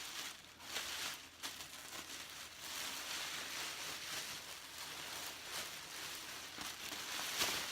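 Rustling and crinkling of a dress and its packaging as they are handled and the dress is unfolded, with a few sharp crinkles in the first second and a half and another just before the end.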